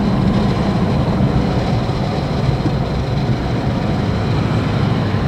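Steady road rumble inside a pickup truck's cab as it drives along a dirt road.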